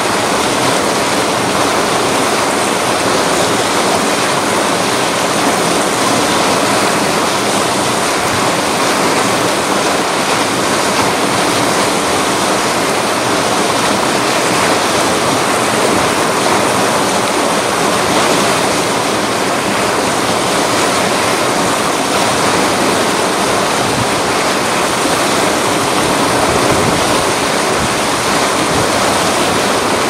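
River rapids: fast water pouring over a rock drop into foaming white water, a loud, steady rush.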